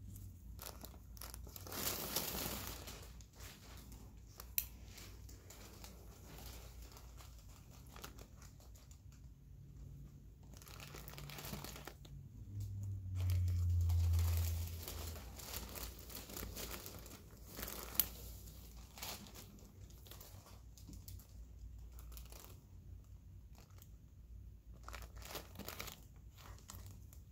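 Close rustling and crinkling from gloved hands and surgical instruments while stitches are put into a small surgical wound on the ear, with a few sharp clicks. A brief low hum comes about halfway through.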